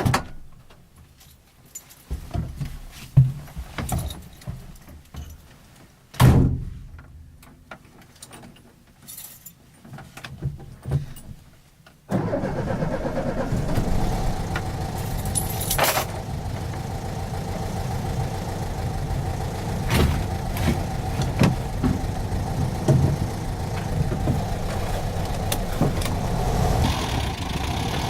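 A scatter of knocks and clicks, then about twelve seconds in a VW T25 van's engine comes in abruptly and runs steadily, as when the engine catches and settles to idle.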